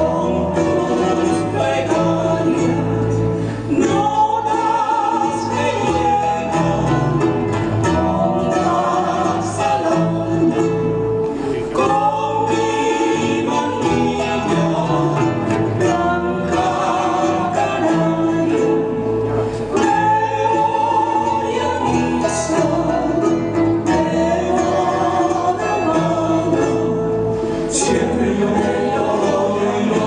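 Live folk music for a couple dance: strummed guitars and other plucked strings keeping a steady rhythm, with voices singing the melody.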